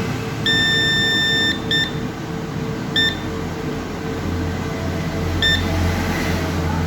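Digital multimeter continuity beeper sounding as the probes touch points on a motherboard: one long beep about half a second in, then three short beeps spread over the next few seconds. The beep signals a short to ground.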